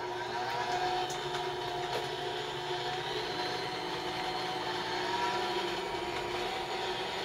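Sunbeam Mixmaster stand mixer running steadily, its twin beaters creaming butter and cream cheese in a stainless steel bowl; an even motor hum with a slightly wavering whine.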